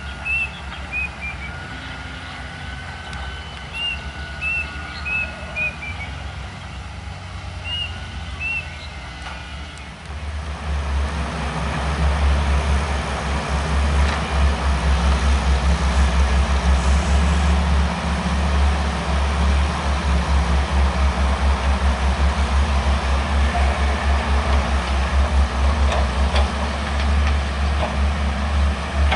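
Distant excavator engines humming under short bird chirps. About ten seconds in, this gives way to the loud, steady, low throb of an HD900V long-reach excavator's diesel engine working close by.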